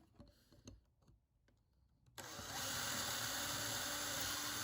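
A few faint handling clicks, then about two seconds in a power drill starts, its pitch rising briefly as it spins up, and runs steadily while boring a hole through a purpleheart wood block.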